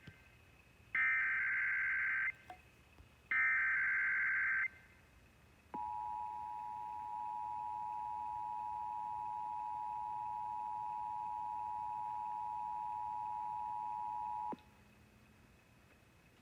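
Emergency Alert System Required Monthly Test: two bursts of the SAME header's shrill digital data tones, about a second and a half each, then the two-tone attention signal held steady for about nine seconds and cut off sharply. Near-silent dead air follows, where the spoken test message did not air.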